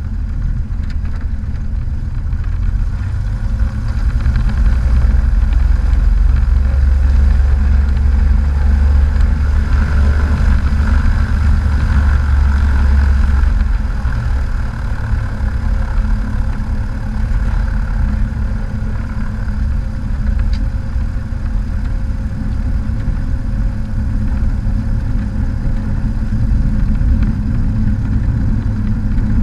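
Cessna 182's piston engine and propeller running at taxi power, heard from inside the cabin. The engine grows louder about four seconds in and eases back after about fourteen seconds.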